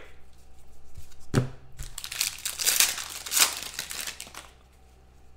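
A foil trading-card pack being torn open and its wrapper crinkled by hand: a dense crackly rustle for about two and a half seconds in the middle, after a single soft knock about a second in.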